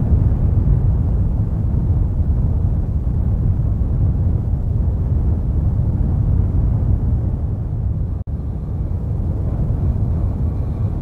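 Steady, deep rumble of a volcanic eruption, the low roar of lava spattering from an erupting vent. It cuts out for an instant about eight seconds in.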